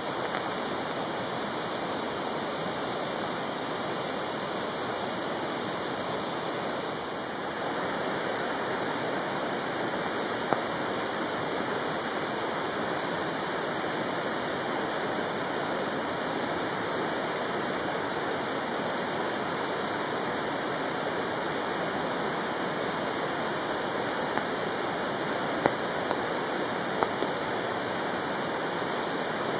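A mountain stream rushing steadily: an even, unbroken sound of flowing water. A few faint clicks come through about ten seconds in and again near the end.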